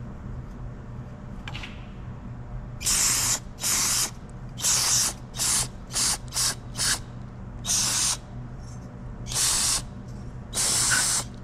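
About ten short hissing spray bursts, irregularly spaced, sprayed to clean out the intake tube on a Tecumseh small engine during a carburetor replacement.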